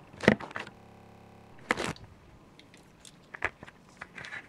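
Handling noise: plastic packaging crinkling in a few sharp bursts, the loudest just under two seconds in, then light clicks of plastic camera-mount parts being fitted together.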